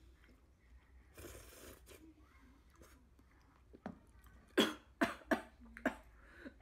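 A woman coughing in a fit of about five or six sharp coughs starting about four seconds in, after food or drink went down the wrong way.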